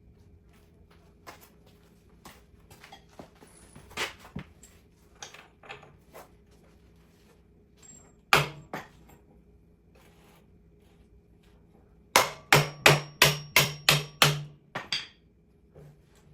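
Hammer tapping a dirt bike's rear axle bolt through the wheel hub: scattered light clicks and knocks as the parts are wiggled into line, two sharp strikes about eight seconds in, then a quick run of about nine blows, about four a second, near the end.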